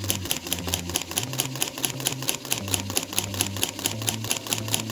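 Small Lego Technic electric motor running, its plastic gears and linkage giving a rapid, even clicking of about a dozen clicks a second.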